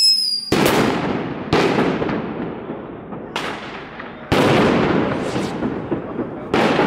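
Ground fireworks going off: a falling whistle ends about half a second in with a loud bang, followed by four more loud bangs spaced one to two seconds apart, each trailing off in a long echo.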